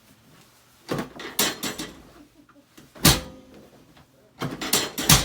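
A string of sharp knocks and clunks from a chiropractic adjustment on the treatment table. The loudest comes about three seconds in, with a quick cluster near the end.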